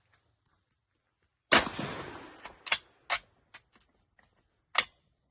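A single bolt-action rifle shot about one and a half seconds in, with a reverberating tail that dies away over about a second. It is followed by several short, sharp clicks.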